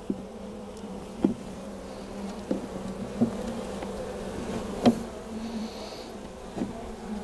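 Honey bees humming steadily over an open hive, with about half a dozen sharp wooden clicks and knocks as a hive tool works the outermost frame loose; the loudest knock comes about five seconds in.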